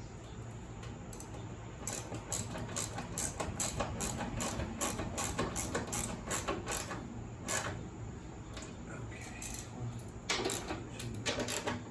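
Ratchet wrench clicking, about four clicks a second for several seconds, then a few louder knocks near the end.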